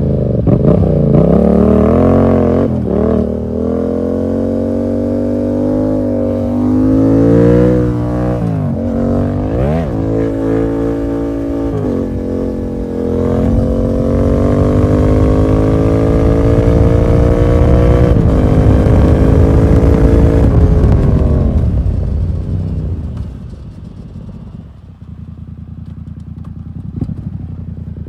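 Yamaha MT-07's parallel-twin engine through an SC Project full exhaust with the dB killer removed, accelerating hard through several gear changes. It holds a long, slowly rising pull, then backs off about three-quarters of the way through to quieter low revs.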